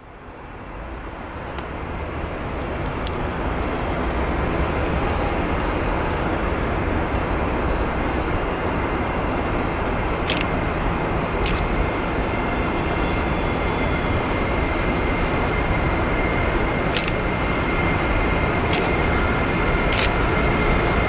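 Electric freight train approaching: an SŽ class 541 (Siemens EuroSprinter) locomotive hauling container wagons gives a steady rumble that builds over the first few seconds and then holds. A thin steady high whine joins about halfway through and grows towards the end, with a few sharp clicks.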